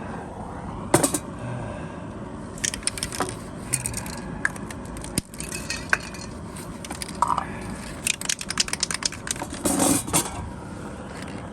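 Irregular light clinks and clatters of small hard objects being handled, with a quick run of clicks near the end, over a steady background hum.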